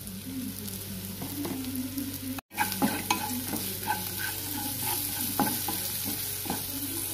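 Wooden spatula stirring and scraping onion-tomato masala frying in oil in a nonstick kadai, with a steady light sizzle under irregular scraping strokes. The sound cuts out for a moment about two and a half seconds in.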